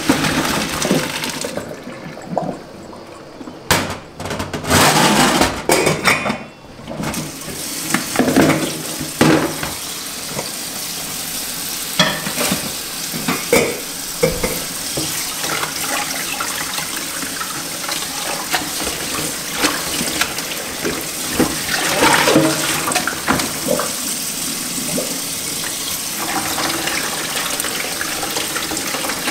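Boiled pasta and its cooking water poured from a steel pot into a plastic colander in a stainless-steel sink, splashing unevenly for the first several seconds. After that a kitchen tap runs steadily over the pasta in the colander as it is rinsed, with occasional sharper splashes and knocks as the colander is shaken.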